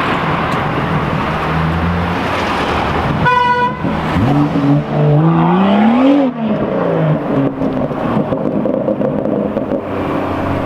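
Car engine and road noise, broken about three seconds in by a short car-horn toot. Then the BMW M2's exhaust-amplified turbocharged straight-six accelerates, its revs climbing for about two seconds and falling back over the next second, and the engine runs on steadily after that.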